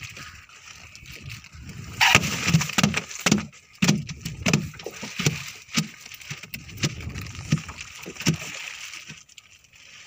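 A large ray caught in a net, slapping and thumping against a boat's deck as it is handled: a run of irregular wet slaps and knocks that starts about two seconds in and dies away near the end.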